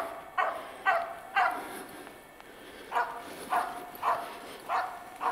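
Karelo-Finnish Laika barking steadily, about two barks a second: three barks, a pause of about a second and a half, then five more. It is the bark of a hunting laika holding game birds, here black grouse.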